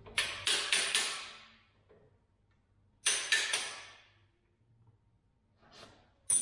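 Sharp metal-on-metal clanks with a ringing tail at a pin joint of a mini excavator's arm: four quick strikes, then three more about three seconds in, and a single one near the end.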